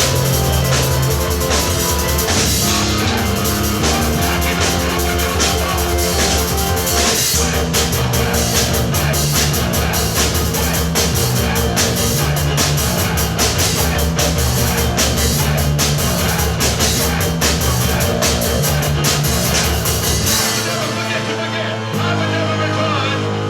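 A rock band playing fast and loud on drum kit, bass and electric guitar, with a stepping bass line under dense drum strokes. About 20 seconds in the bass drops out and the drums thin, leaving mostly guitar.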